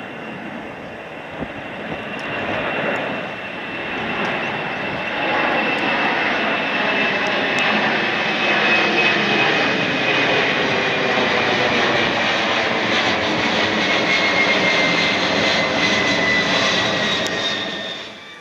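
Twin-engine jet airliner's engines at climb power as it passes overhead after takeoff: a loud, rushing jet noise with a whine that slowly falls in pitch. It builds over the first few seconds, holds steady, then cuts off abruptly near the end.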